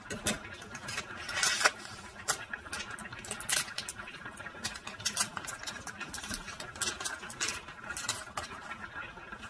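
Thin plastic food packaging crinkling and rustling as hands cut and pull it open, in irregular sharp crackles with a louder rustle about a second and a half in.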